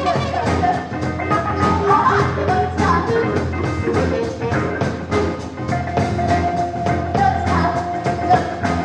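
Live improvised band music: a fast, even pulse of drums and percussion under organ, bass and singing, with a long, wavering high note held through the second half.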